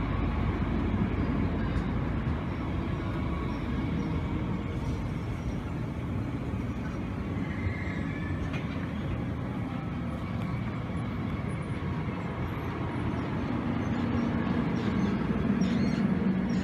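DB S-Bahn electric multiple unit running past along the platform: a steady rumble of wheels on the rails, with a low hum growing louder near the end as the rear car goes by.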